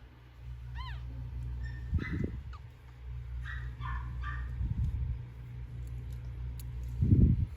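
Newborn puppy squeaking and whimpering: a few thin, high cries, one rising and falling about a second in and a short run of them around the middle. Low bumps and rustling of handling run underneath, the loudest near the end.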